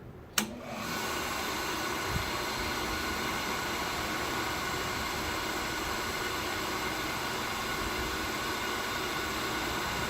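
A sharp click of the switch, then the single-phase motor of a Cuttermaster tool and cutter grinder comes up to speed within about half a second and runs steadily with an even whirring hiss.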